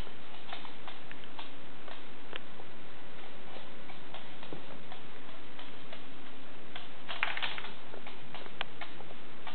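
Irregular light clicks of a miniature bull terrier's claws on a hard floor as it trots about, with a quick flurry of clicks about seven seconds in, over a steady background hiss.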